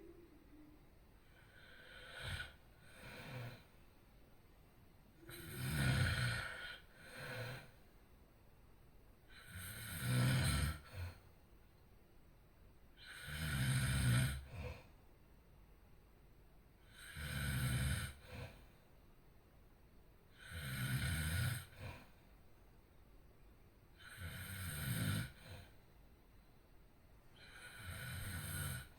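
A person snoring steadily in a regular rhythm, one long snore about every three and a half seconds, many followed at once by a brief, shorter one.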